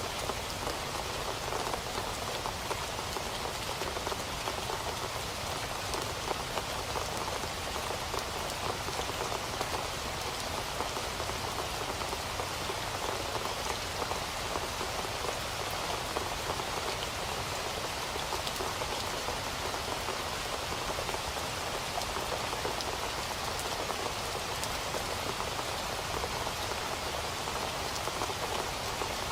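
Steady rain falling and pattering on surfaces, a constant even hiss with many small drop taps.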